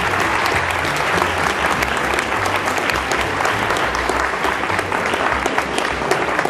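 A large audience applauding, many hands clapping steadily.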